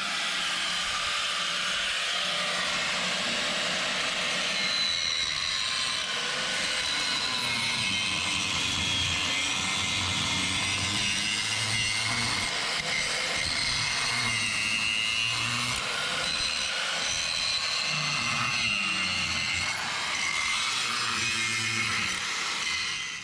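Angle grinder grinding off the heads of steel rivets that hold a rusted coil spring tower to a truck frame, running continuously with its pitch wavering as it is pressed into the metal.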